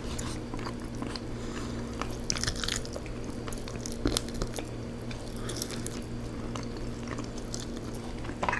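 Close-up eating sounds: a person chewing rotisserie chicken and pulling the meat apart with the fingers, with many small wet mouth clicks and smacks over a faint steady hum.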